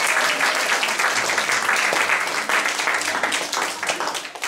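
Audience of schoolchildren applauding, many hands clapping together, thinning and fading out near the end.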